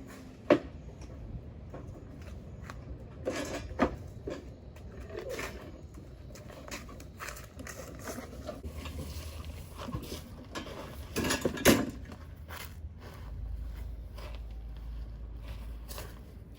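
A flathead screwdriver working screws and parts loose on a sewing table: scattered sharp metallic clicks, knocks and scraping, with a cluster of louder knocks about eleven seconds in.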